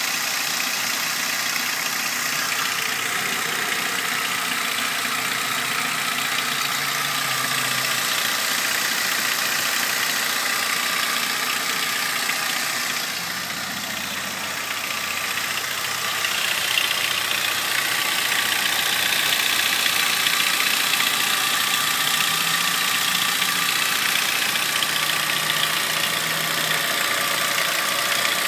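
Ford Ranger engine idling with a ticking sound. The sound dips briefly about halfway through, then runs a little louder and brighter.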